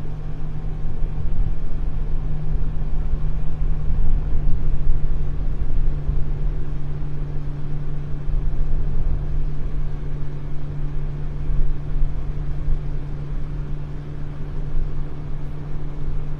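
A boat's motor running steadily under way with a constant low hum, with wind buffeting the microphone as a loud, uneven rumble.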